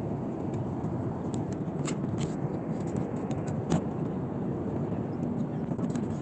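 Steady low rumble of a moving vehicle heard from inside, with a few faint clicks and knocks.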